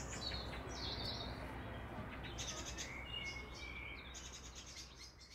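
Birds chirping and trilling over a steady outdoor ambience, fading out near the end.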